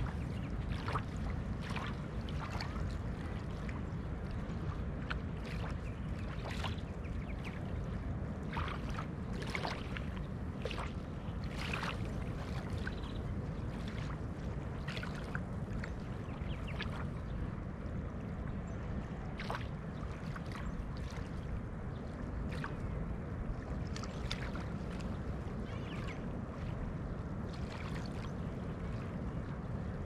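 Small ripples of a calm sea lapping at a sandy shoreline: irregular little splashes and trickles over a steady low rumble.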